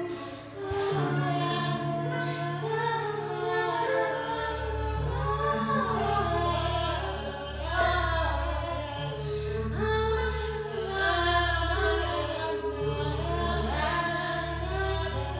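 Music of wordless, improvised female singing in several overlapping voice lines, joined about four seconds in by a low sustained drone.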